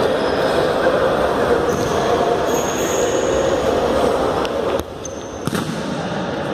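Echoing din of a futsal game in a sports hall: a steady wash of noise from the court and sideline, with a couple of sharp knocks of the ball about four and a half and five and a half seconds in.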